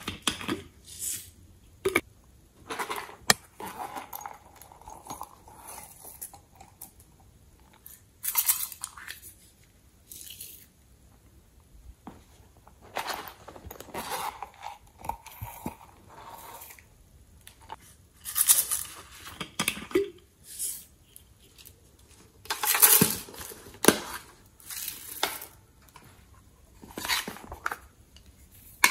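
Thin plastic bottles and containers being squeezed and handled, crinkling and crackling in irregular bursts, with sharp clicks and taps between them.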